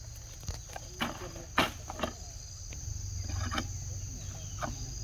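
Steady high-pitched drone of an insect chorus, crickets or cicadas, over a low rumble. Scattered short clicks and knocks break through, the sharpest about a second and a half in.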